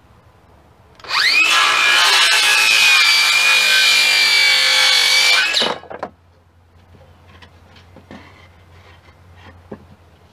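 Electric power saw spinning up about a second in, cutting through treated pine boards with a high whine over the rasp of the blade, then winding down just before six seconds in.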